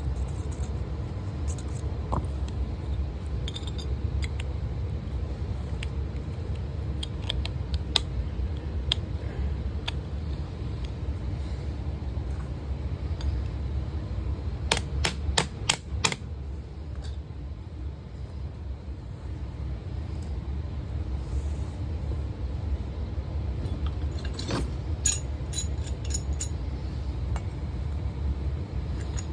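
Light metallic clinks and rattles in scattered clusters over a steady low rumble.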